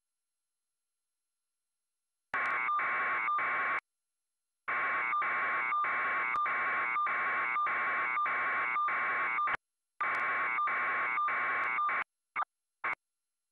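Harsh, garbled buzzing from a breaking-up digital satellite TV feed. It cuts in abruptly about two seconds in with a regular stutter, drops out twice and splinters into short blips near the end: the audio failing along with the signal.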